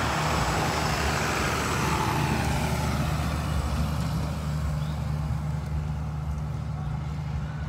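Steady low rumble of a running motor vehicle engine, with a broad hiss over it that fades after the first few seconds.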